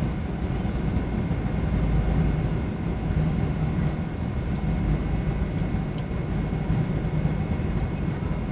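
Steady cabin roar of a Boeing 777 in flight, jet engine and airflow noise heard from inside the passenger cabin, with a deep hum and a faint steady whine.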